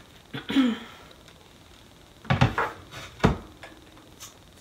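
Wooden sign board being handled and set down on a worktable, with two sharp knocks a little over two seconds and about three seconds in.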